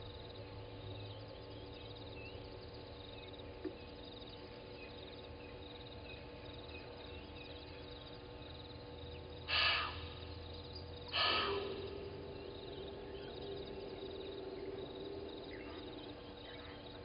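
Early-morning waterhole ambience of faint bird chirps over a steady low drone, broken twice, about a second and a half apart, by short loud breathy blasts from an animal, heard as snorts.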